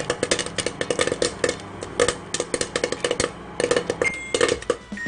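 Popcorn popping: a rapid, irregular run of sharp pops, several a second, as kernels burst in the bag. A short high tone sounds about four seconds in.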